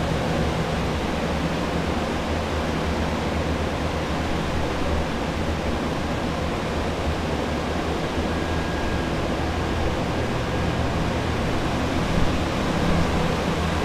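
Water-damage drying equipment running: air movers and commercial dehumidifiers making a steady rush of air with a low motor hum underneath.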